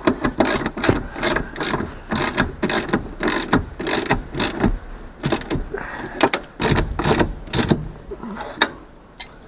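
Ratcheting metal mechanism clicking and clacking irregularly, two or three strokes a second, stopping about eight seconds in.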